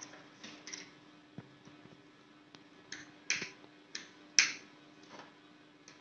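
Clear plastic packaging tray being handled and put down: a scatter of short, sharp plastic clicks and crackles, about half a dozen, the loudest about four and a half seconds in, over a faint steady hum.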